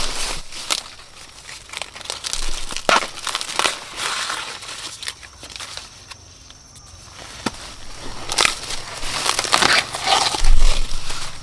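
Dry corn leaves and husks rustling and crackling as ears of corn are picked by hand, with sharp cracks now and then. The rustling quietens in the middle and picks up again near the end, where there is a low thump.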